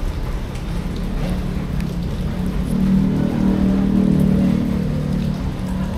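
A motor vehicle engine running close by, swelling louder through the middle and easing off near the end, over a steady low traffic rumble.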